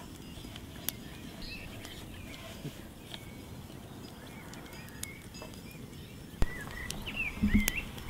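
Outdoor ambience: small birds chirping now and then over a low, steady rumble, with a few sharp clicks, the loudest a little past six seconds in.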